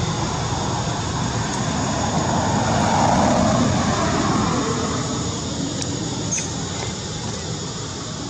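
Road vehicle passing by in steady traffic noise, swelling about three seconds in and easing off toward the end.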